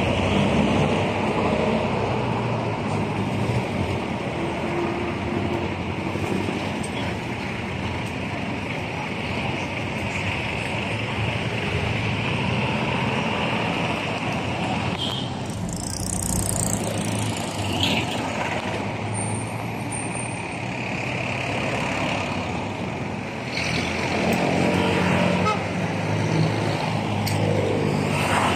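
Street traffic: jeepneys, cars and motorcycles passing close by with their engines running, and a brief hiss about halfway through.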